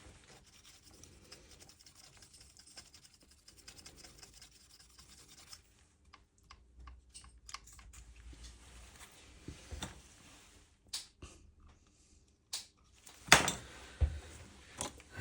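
A small tool scratching and rubbing on a circuit board, cleaning around the charging-port pins. The scratching is dense for the first several seconds, then gives way to scattered light clicks and taps, with a sharper knock near the end.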